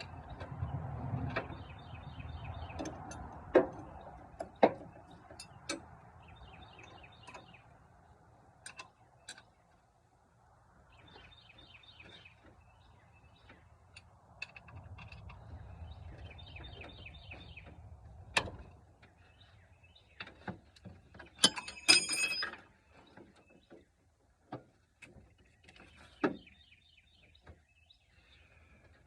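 Scattered sharp clicks and knocks of hand tools and metal parts being handled, with a short ringing metallic clatter about three-quarters of the way through. Small birds chirp in short repeated trills in the background.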